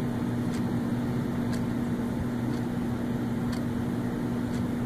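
Quartz wall clock ticking softly once a second over a steady low hum with a constant drone.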